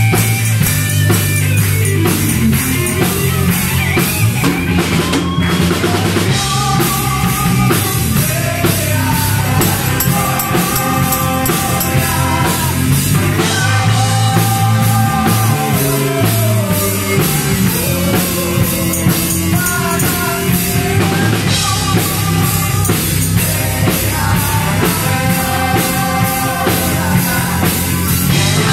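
Amplified live worship band and choir: several voices singing a hymn together into microphones over electric guitars, keyboard and a drum kit keeping a steady rock beat.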